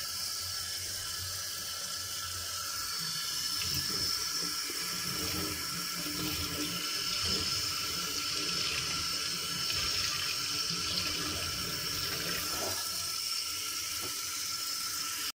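Kitchen tap running steadily into a stainless-steel sink while a frying pan is rinsed and scrubbed with a sponge. The sound cuts off abruptly at the very end.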